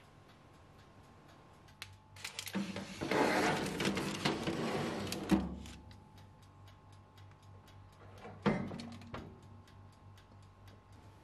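A metal baking tray slid onto an oven rack: about three seconds of scraping that ends in a knock. A few seconds later the oven door shuts with a single clunk.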